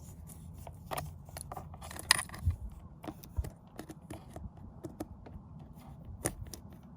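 Small, irregular plastic clicks and taps of a steering-wheel airbag wiring connector being handled and pushed together, with one sharper click about two seconds in.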